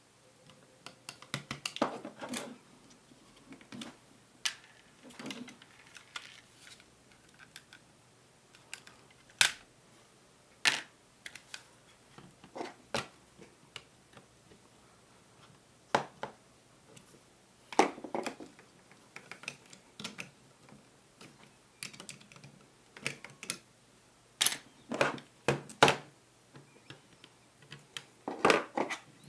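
Parts of a spring airsoft pistol clicking and knocking as it is handled and taken apart: irregular sharp clicks and taps, some single and some in quick clusters, with light handling noise between them.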